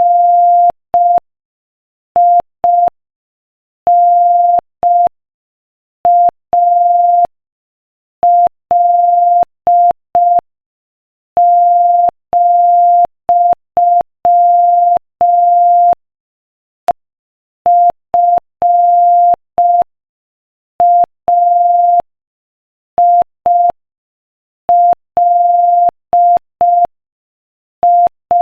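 Morse code sent at 5 words per minute as a single steady mid-pitched tone keyed on and off in dots and dashes, with longer gaps between letters and words. Each tone starts and stops with a faint click.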